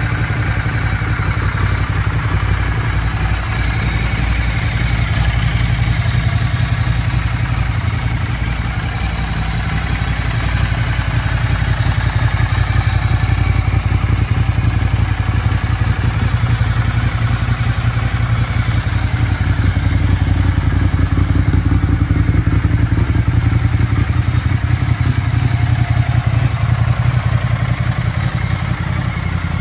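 2012 Ducati Multistrada 1200's Testastretta L-twin engine idling steadily.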